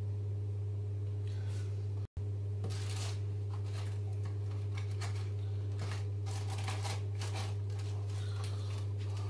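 Irregular rustling and light clatter of hands working at a kitchen counter, over a steady low hum. The sound cuts out for an instant about two seconds in.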